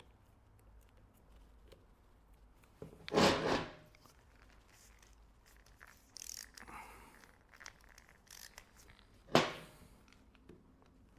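Handling noises as a Makita angle grinder's plastic housing is put back together: two short, louder scraping rubs about three and nine seconds in, with faint scratches and clicks between.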